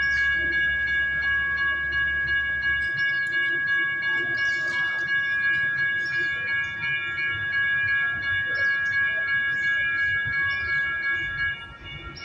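Railroad crossing warning bell ringing steadily as the crossing gates lower, signalling an approaching train; it cuts off about eleven and a half seconds in, once the gate arms are down.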